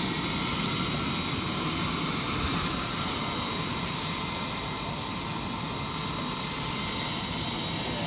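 Robotic floor scrubber-dryer running: a steady whir from its scrubbing-brush and suction motors as it drives along, with one short click about two and a half seconds in.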